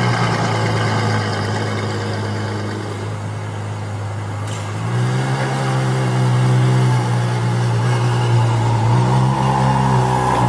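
Ferrari 812 Superfast's 6.5-litre V12 idling steadily right after start-up, with a deep, even exhaust note. About halfway through, the idle steps up slightly in pitch and loudness.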